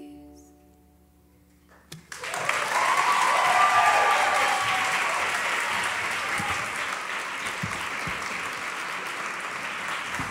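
Last ukulele chord fading away, then about two seconds in an audience starts applauding, with a cheer over the clapping, and keeps applauding steadily.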